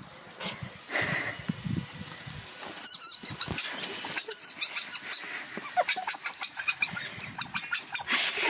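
Sounds of pet animals at close range, with many sharp clicks and short scuffling noises.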